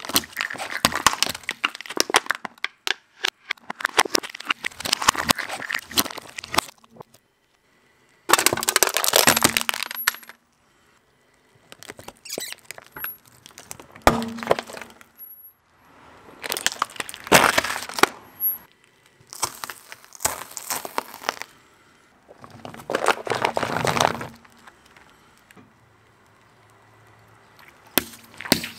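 A car tyre rolling over plastic toys and crushing them: dense crackling and cracking of the plastic in about eight separate runs of one to three seconds each, with short pauses between them and a last sharp crack near the end.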